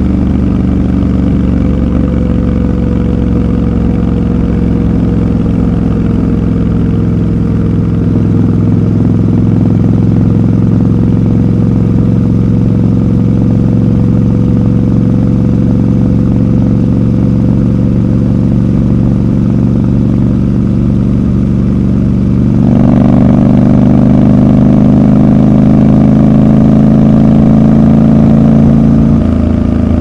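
Triumph Scrambler 1200 XC's parallel-twin engine and exhaust running steadily under way. About 23 seconds in, the engine gets louder and fuller as the throttle opens, then eases back near the end.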